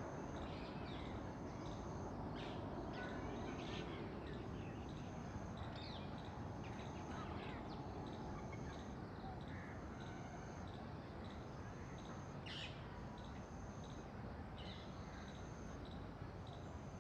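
Outdoor ambience of scattered bird chirps and calls, with an insect's high trill that pulses on and off about every second and a half, over a steady low background hum.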